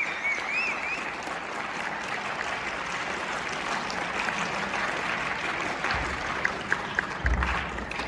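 School audience applauding, with a few high cheers near the start and some low thuds near the end.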